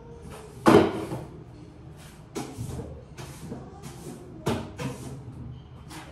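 Household cleaning in a kitchen: a few sharp knocks and clatters, the loudest just under a second in and others about two and a half and four and a half seconds in, among short swishing strokes.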